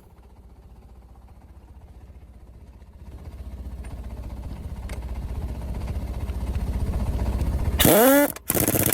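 Engine running with a low rumble that grows gradually louder, then a short, much louder burst near the end whose pitch sweeps up and down before cutting off suddenly.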